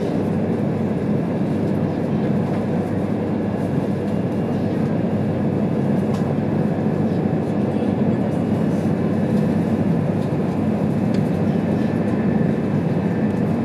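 Cabin running noise of a JR East E2 series Shinkansen travelling at high speed: a steady, even low rush of wheel, track and air noise with no changes.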